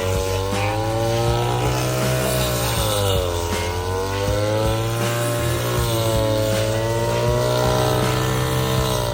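Small lawn mower engine running, its pitch sagging and picking up again a few times.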